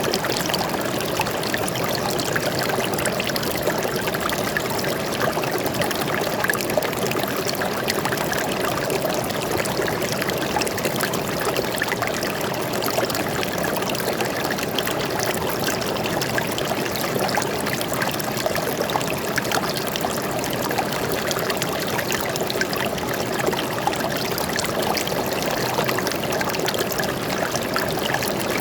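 Water flowing steadily in a stream, trickling and splashing with many small bright droplet sounds over an even rush.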